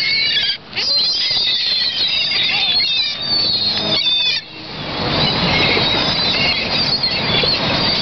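A flock of gulls calling over one another in many short, high squeals, with wings flapping as they swarm low over the water.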